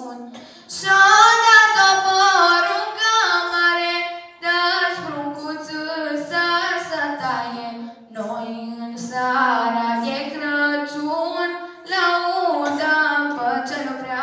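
Unaccompanied female singing of a Romanian colindă (Christmas carol), in sung phrases about four seconds long with short breaks between.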